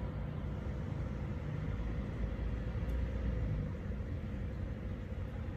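Steady low background rumble with a faint steady hum above it.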